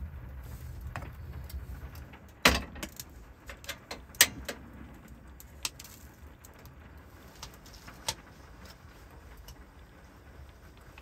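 Metal clinks and clacks from a stovetop moka pot being filled with coffee grounds and set on a portable butane camp stove, which is clicked alight. Two sharp clacks about two seconds apart are the loudest, followed by a few lighter clicks.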